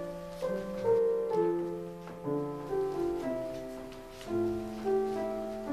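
Slow piano music: a gentle tune played over held chords, each note struck and then fading.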